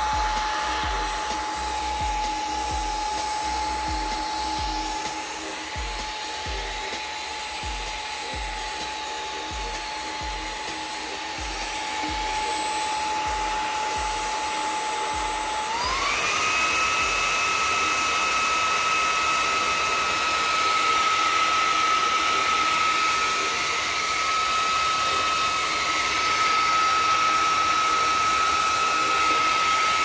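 Xiaomi Mi Vacuum Cleaner Mini handheld vacuum running at normal speed with a steady motor whine, then switched to maximum speed about halfway through: the whine steps up in pitch and gets louder, and holds there.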